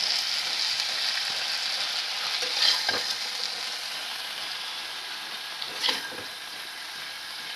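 Chilli chicken in its sauce sizzling in a pan on the gas, with a few quick spatula strokes against the pan about three and six seconds in. The sizzle slowly grows quieter.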